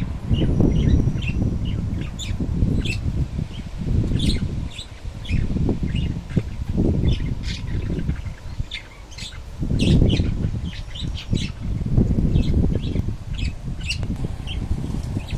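Strong wind buffeting the microphone in gusts, with many short, high bird chirps throughout.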